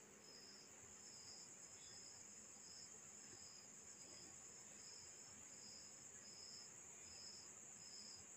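Faint crickets: a steady high trill with a chirp repeating about every two-thirds of a second, over near silence.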